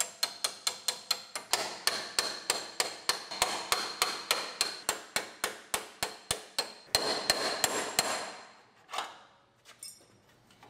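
Hammer blows driving a spot weld breaker into drilled-out spot welds on a car's steel body panel, about four blows a second, each with a short metallic ring. The blows come faster for a moment about seven seconds in, stop about a second later, and one more knock follows about nine seconds in.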